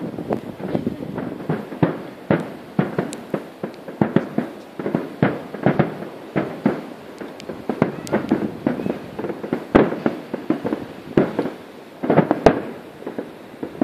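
Fireworks display: aerial shells bursting over the sea in a rapid, irregular string of bangs, several a second, with a denser cluster near the end.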